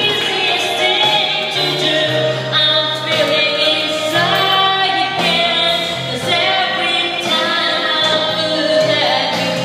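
Karaoke: a woman singing into a handheld microphone over a backing track with steady held bass notes.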